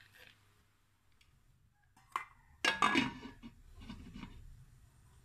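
Glass pot lid with a steel rim clattering and clinking against a stainless steel cooking pot as it is set on and adjusted: a sharp click a little after two seconds, a loud clatter about a second later, and a softer rattle near the end.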